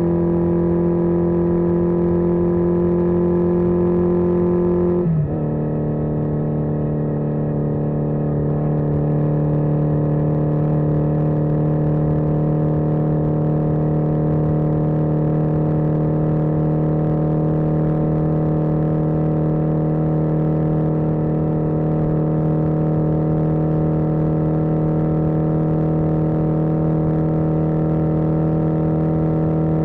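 1981 Yamaha XJ650 Maxim's air-cooled inline-four engine running under way. Its pitch drops sharply about five seconds in and then holds steady at the lower note.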